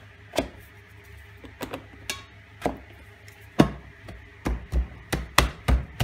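Irregular knocks and clunks of plastic pipes and a wooden top plate being pushed and tapped into place on a glass tank assembly, the loudest knock about halfway through and a quicker run of knocks near the end.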